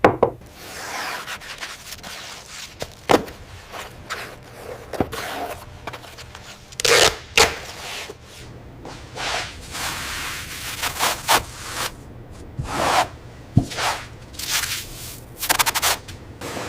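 Wood being worked by hand: irregular rubbing and scraping strokes over a wooden surface, with a few sharper, louder strokes, a single knock and a quick run of short strokes near the end.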